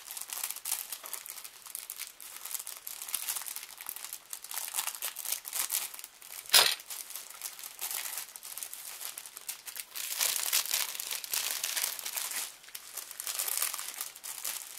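Clear plastic kit bag crinkling and crackling as it is handled and opened. One loud, sharp crackle comes about six and a half seconds in.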